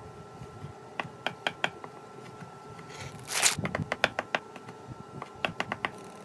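Chef's knife slicing through smoked sausage onto a wooden butcher-block counter: quick runs of sharp clicks as the blade meets the wood, with a short louder swish a little after three seconds in.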